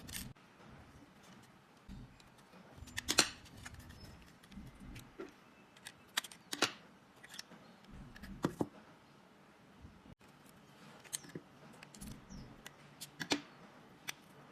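Scattered light clicks and metallic taps of a screwdriver working the screws out of a Honda lock and small metal lock parts being handled, a few sharper clicks about 3, 6.5, 8.5 and 13 seconds in.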